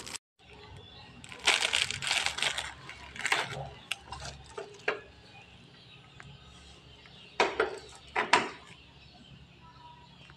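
Metal electric-fan spare parts (shafts, bushings and washers) in plastic bags clinking and rustling as they are handled, in several short bursts of clicks and crinkles.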